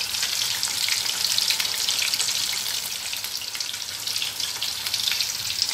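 Hot oil sizzling steadily with fine crackling as spiced potato kofte, bound with gram flour, deep-fry in a pan.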